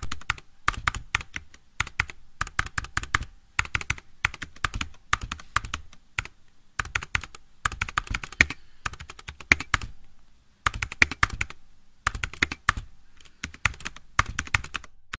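Typing on a white Apple MacBook keyboard: quick runs of key clicks in bursts, broken by short pauses, the longest about ten seconds in.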